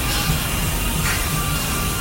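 Music playing steadily, with a low pulse repeating regularly under a dense, hissy texture.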